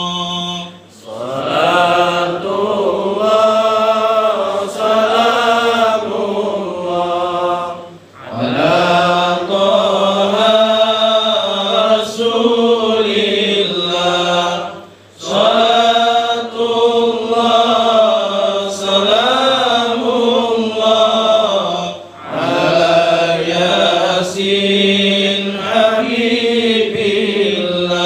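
A solo male voice chanting an Arabic recitation into a microphone, in long melodic, wavering phrases with a short breath pause about every seven seconds.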